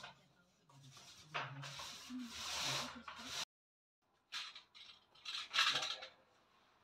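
Paint roller rubbing over a wall in uneven strokes. It is followed, after a break, by two short scuffing noises, the second and louder one about six seconds in.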